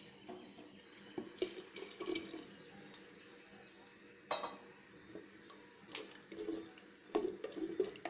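Wooden spatula scraping and knocking against the inside of a clay pot while stirring thin, watery curry, with some sloshing. The knocks come irregularly, the loudest about four seconds in, with a quicker run of them near the end.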